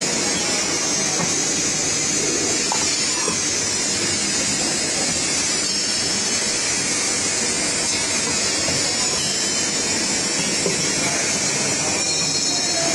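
Steady mechanical running noise of an automatic screen printing machine for cylindrical bottles in operation.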